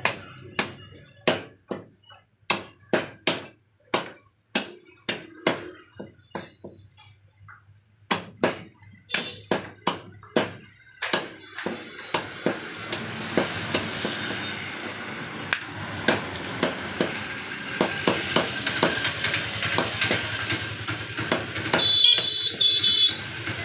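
Cleaver chopping a rooster into small pieces on a wooden log block: a run of sharp chops through meat and bone, about two a second, thinning out for a few seconds partway through. Steady background noise rises under the chops in the second half.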